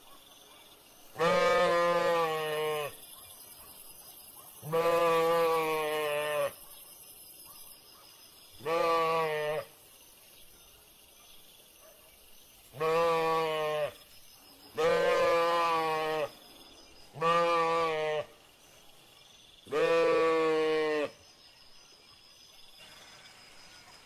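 Sheep bleating: seven long calls, each with a wavering pitch and lasting about a second or more, with pauses of one to two seconds between them.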